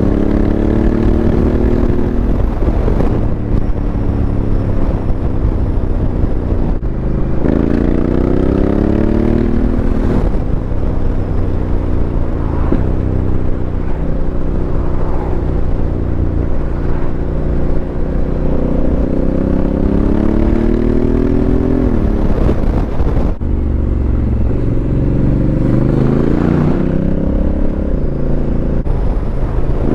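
Honda CRF1100L Africa Twin's parallel-twin engine running through an aftermarket Fuel exhaust on the move, its pitch climbing under acceleration and dropping sharply at each gear change several times. Wind rumble from a helmet-mounted mic runs underneath.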